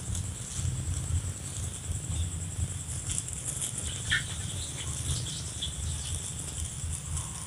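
A thin clear plastic bag crinkling and rustling in short, irregular crackles as it is fitted down over a grafted durian seedling, over a steady low rumble.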